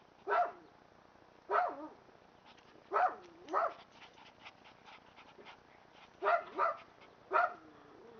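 Schipperke puppies barking: seven short, high yaps, singly and in quick pairs, the last drawn out into a falling whine.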